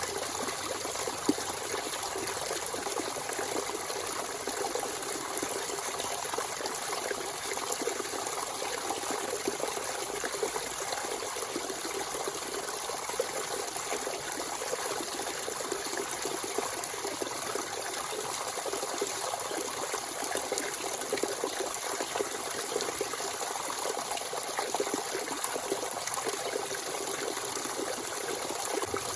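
Natural spring water running freely in a steady trickling, splashing flow.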